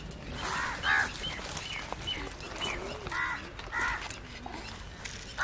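Birds calling outdoors: a series of short, harsh calls, about five or six of them, over fainter chirping.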